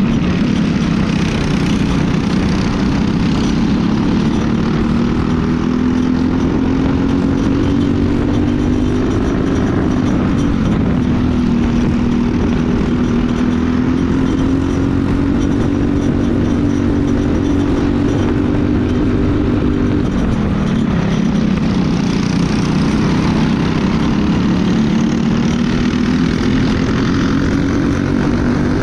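Briggs & Stratton LO206 four-stroke single-cylinder kart engine racing at full throttle, heard on board the kart. Its pitch climbs steadily along the straights and drops under braking for corners, about ten seconds in and more sharply about twenty seconds in, before climbing again.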